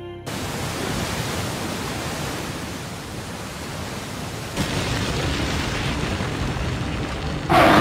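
Rushing water: a steady, even rush of noise that gets louder about halfway through and again, suddenly, near the end.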